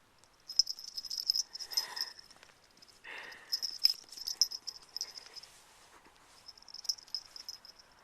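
A cat's claws scrabbling and scraping on ice, a high-pitched scratchy skittering in three bursts, with a short lower sound about three seconds in.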